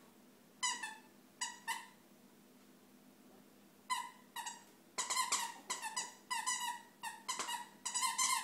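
Squeaky dog toy squeaked by a Yorkshire terrier chewing on it. A few separate squeaks come in the first two seconds, then quicker, almost continuous squeaking from about five seconds in.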